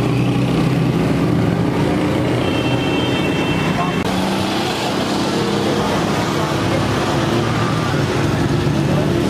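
Street traffic noise: motor vehicle engines running steadily, with indistinct voices in the background.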